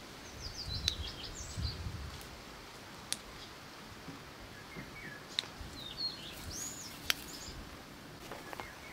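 Small songbirds chirping in short, high twittering phrases, in two spells, with a few sharp clicks and a low rumble in between.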